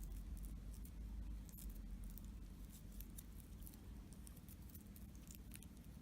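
Hands kneading play-doh mixed with glitter glue: faint, irregular soft sticky clicks and squishes over a low steady hum.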